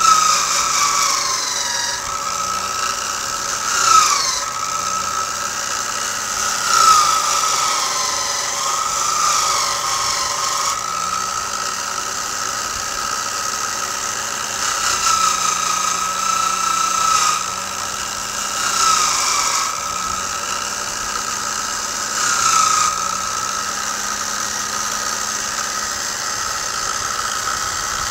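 A bench motor spins a steel wire wheel with a steady high whine. Several times a rifle barrel and action are pressed against the wheel: the whine dips in pitch and a scratchy brushing swells. This is carding the loosened converted rust off the steel before rust bluing.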